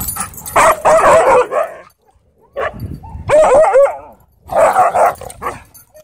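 Several dogs wrestling and barking, in three loud bursts of barks and yips. The middle burst holds a run of rising-and-falling pitched yelps.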